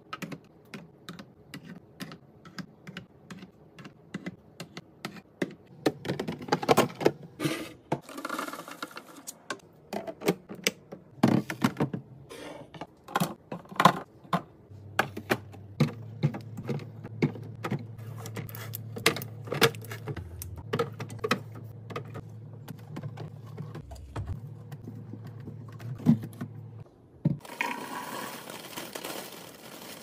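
Brown eggs set one by one into a plastic egg tray, the shells clicking and tapping against the plastic in quick, irregular taps. A low hum runs through the middle, and a rustling, hissing stretch comes near the end.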